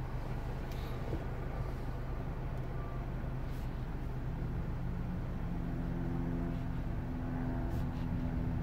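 Steady low hum of an Audi Q5 idling, heard from inside its cabin, with a few faint clicks.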